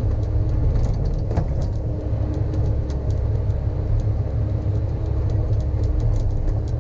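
Sany excavator's diesel engine running steadily under digging load, heard from inside the cab: a deep rumble with a steady hum that drops in and out, and scattered light clicks.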